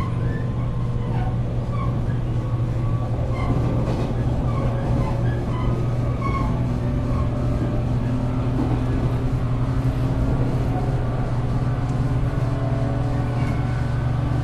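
Running sound of a JR West 475 series express-type EMU heard inside the motor car: the hum of its MT54 traction motors over a steady rumble of wheels on rail.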